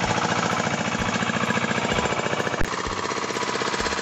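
Engine of a two-wheel hand tractor running steadily, a fast even chugging while it moves along under way. About two and a half seconds in there is a sharp click, and after it the engine sounds a little quieter.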